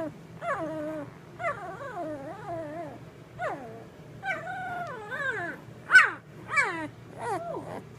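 One-week-old Labrador Retriever puppies whining: a string of high cries, each falling in pitch, about one or two a second, the loudest about six seconds in.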